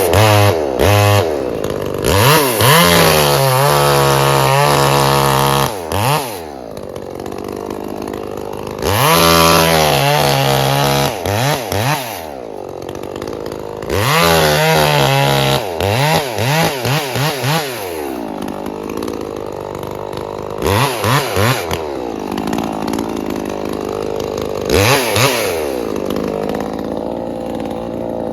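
Chainsaw running a chain with a broken cutter, revved up to full speed three times and held for a few seconds each, dropping back to idle between, then blipped briefly twice near the end.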